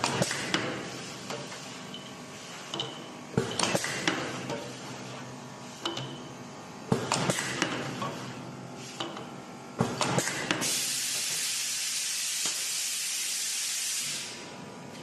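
Semi-automatic PU foam aerosol filling machine cycling on cans: the pneumatic head clacks down and up about every three and a half seconds, each time with a short hiss of air. Near the end comes one steady hiss lasting about three and a half seconds, which cuts off.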